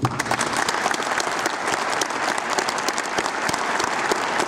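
Audience applauding, a dense steady patter of many hands clapping that starts suddenly at the opening.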